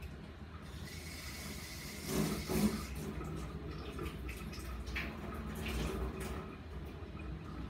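Water running off to one side, starting a little under a second in and loudest around two seconds in, with a few light knocks of things being handled.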